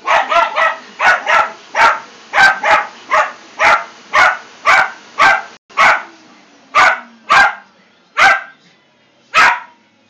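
Jack Russell terrier puppy barking at a vacuum cleaner: about eighteen sharp, high barks, quick and in pairs at first, then more spaced out toward the end. A faint steady hiss sits under the barks and drops out about halfway through.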